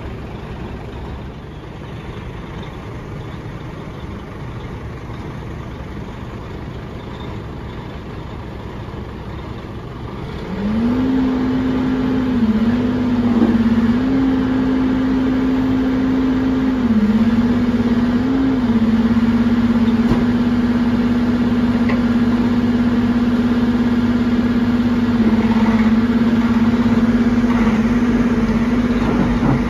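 Cat backhoe loader's diesel engine idling, then revving up about a third of the way in and held at high revs, louder, with a few brief dips in speed.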